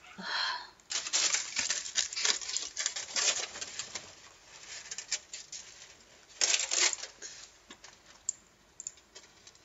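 Crumpled sheet of aluminium foil crinkling as it is handled, in a dense crackle for a few seconds, then a short second burst of crinkling, with fainter rustles between.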